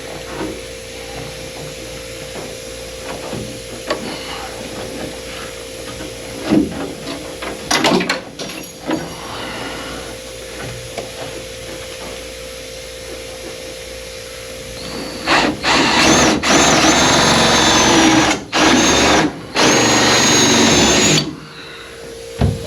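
Small handheld power drill running in a few spurts for about six seconds, a high whine with brief stops between, drilling for the tiny screws that hold a window fuzzy to its stainless trim strip. Before it come light tapping and handling clicks.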